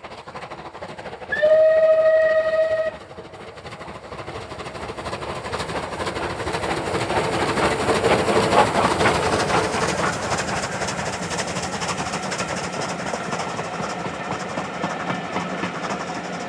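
A Bulleid West Country class steam locomotive's whistle blows once for about a second and a half, then the engine passes close by and its coaches roll past, the wheels clattering on the rails.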